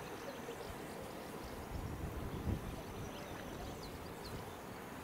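Wind rumbling on the microphone in uneven gusts, strongest about two seconds in, with a few faint high chirps.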